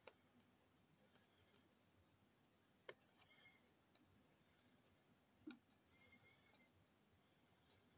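Near silence with a few faint clicks and taps of a small plastic toy train being handled, the sharpest about three seconds and five and a half seconds in.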